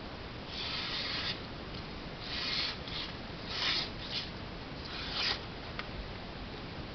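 A knife edge being drawn across something in about six short rasping strokes of uneven length, each a fraction of a second long.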